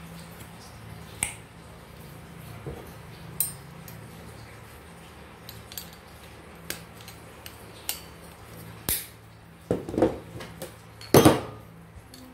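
Metal electric-fan motor parts and a screwdriver clinking and knocking as they are handled on a workbench. Scattered sharp clicks, with a run of louder knocks near the end.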